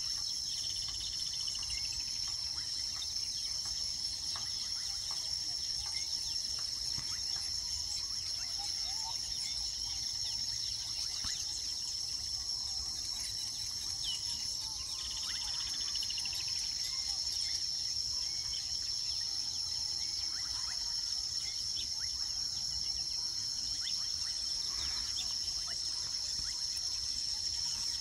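A steady high-pitched insect trill, cricket-like, with occasional short bird chirps and chatter over it, including brief runs of calls about a second in and again about fifteen seconds in.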